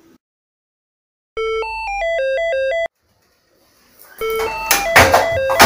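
Electronic phone ringtone: a short synthesized tune of about eight notes, played twice with a pause of about a second between. The second time it sounds over rustling and clatter.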